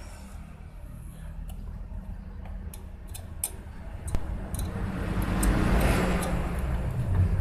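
Refrigerator compressor humming low and steadily, with scattered light clicks and a rustling handling noise that builds in the second half.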